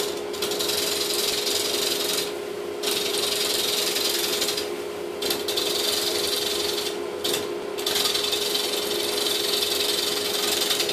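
A wood lathe spinning a bowl while a gouge cuts it: a steady motor hum under a broad hiss of cutting, which drops out briefly three times.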